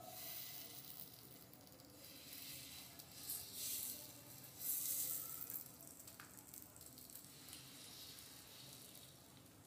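Batter-coated bottle gourd slices sizzling as they are laid one by one on a hot iron tawa. The sizzle flares up twice around the middle.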